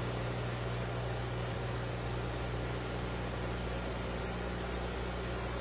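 Steady hiss of a gas torch flame shrinking a heat-shrink stress control tube, with a steady electrical hum underneath.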